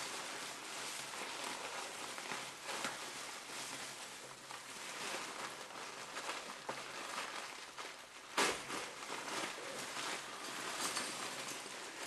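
Bubble wrap and plastic packaging rustling and crinkling as hands dig through a cardboard box, with many small crackles and one sharper, louder crackle a little past eight seconds in.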